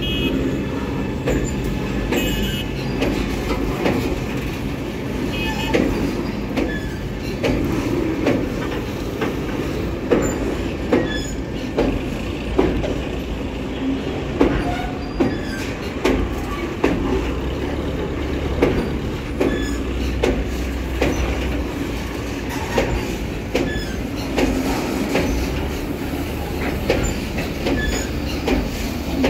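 Freight train of covered box wagons rolling past at close range: a steady rumble of steel wheels on rail, with regular clacks about once a second as the wheels cross rail joints.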